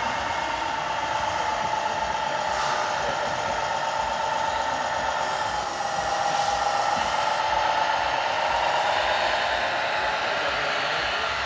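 Radio-controlled model truck running with a steady whine of small electric motors and gears; the pitch sags and climbs again around the middle. A high hiss joins about five seconds in and lasts roughly two seconds.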